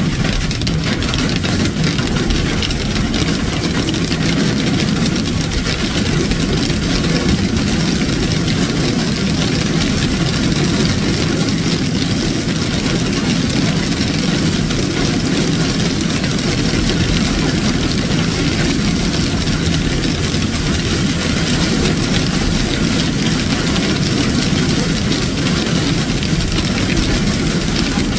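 Heavy storm rain with hail drumming steadily on a car's roof and windshield, heard from inside the car as a dense, unbroken din.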